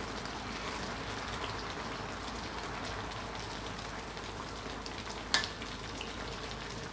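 Coconut-milk curry boiling in a steel wok, a steady bubbling hiss, while a metal spatula stirs through it. One sharp clack of the spatula against the wok about five seconds in.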